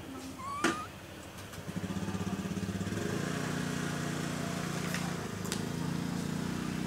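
A small engine running steadily with an even pulsing drone, starting about two seconds in. A short high squeak rising in pitch comes about half a second in.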